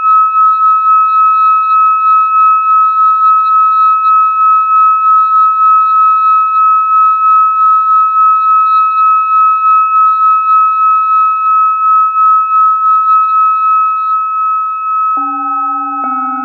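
Metal singing bowl rimmed with a stick, giving one high, sustained ringing tone with a regular wobble. Near the end a bowl on the table is struck twice, adding lower ringing tones under it.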